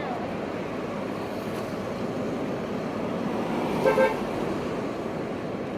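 Steady street traffic noise, with a short car horn toot, two quick beeps, about four seconds in.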